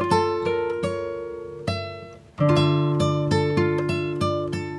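Background music: plucked acoustic guitar notes in a steady picking pattern, fading briefly about two seconds in, then coming back louder.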